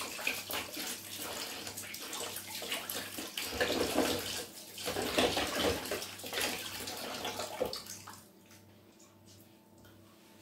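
Kitchen tap running into a steel sink while hands are washed under it, the water splashing; it stops about eight seconds in.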